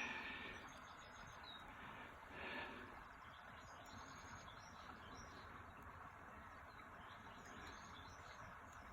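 Quiet bush ambience with faint bird calls: a brief call at the start, another about two and a half seconds in, and soft high chirps after that.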